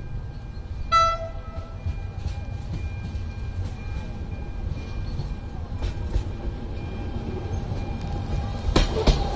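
ZSSK Class 425.95 electric multiple unit approaching: a short horn toot about a second in, then the rumble of the oncoming train with a steady whine that grows louder. A few sharp wheel clacks come near the end as it reaches the crossing.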